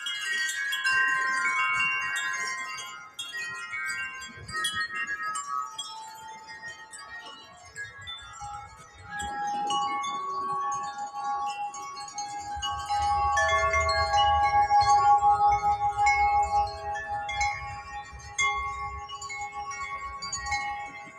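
Several hanging wind chimes ringing together in gusty wind, many overlapping held tones struck again and again. From about halfway through, wind rumbles on the microphone under the chimes, and the chimes ring loudest then.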